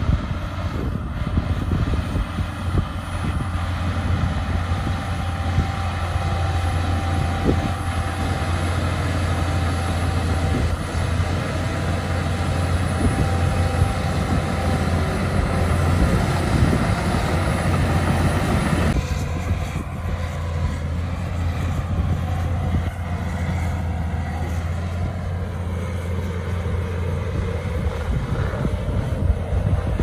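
Shantui DH17 C2 crawler bulldozer's diesel engine running steadily under load as it pushes soil, with rattling and clanking from the tracks and blade. About two-thirds of the way through the sound changes suddenly, losing much of its upper range.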